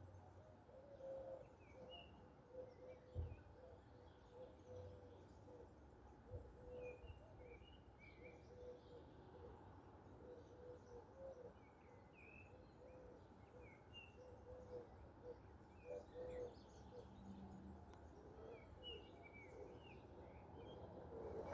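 Faint birdsong: a bird repeats short, soft, low hooting notes in a steady series, while small songbirds give scattered short high chirps, over a faint low background rumble.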